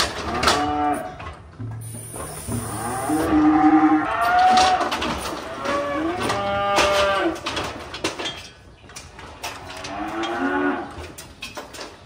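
Feeder calves bawling in a squeeze chute, about five long moos spread through the time, with knocks and clanks between them.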